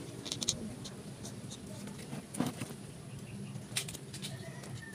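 Small knife cutting and scraping at the fibrous husk at the base of a coconut seedling: scattered sharp clicks and scrapes, a few close together at the start, then single ones about two and a half and four seconds in.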